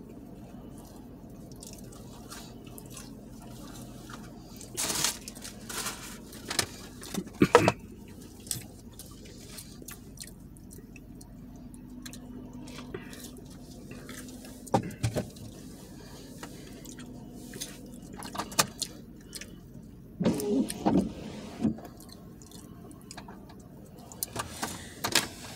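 Eating and drinking sounds in a car: scattered short clicks, crunches and food-handling noises over a low, steady background.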